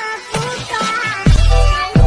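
Electronic background music: a synth melody, joined about a second and a quarter in by a heavy bass and drum beat.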